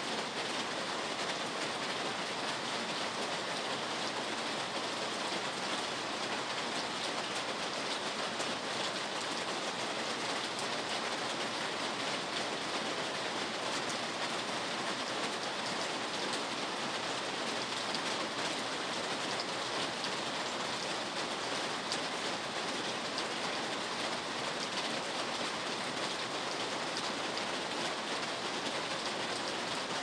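Rain falling steadily, an even hiss with no breaks or single events.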